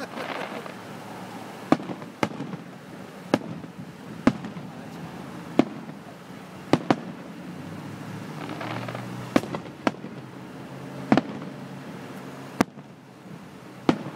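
Aerial fireworks bursting overhead: a series of about a dozen sharp bangs at uneven intervals, heard at a distance.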